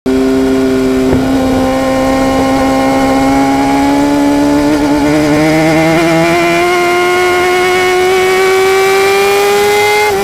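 Kawasaki ZX-10 inline-four sportbike engine pulling hard in fourth gear, its pitch climbing steadily as the bike accelerates, then falling near the end.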